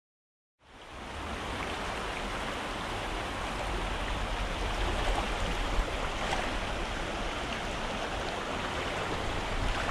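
Shallow, rocky mountain creek running: a steady rush of flowing water with a low rumble underneath, cutting in abruptly about half a second in after silence.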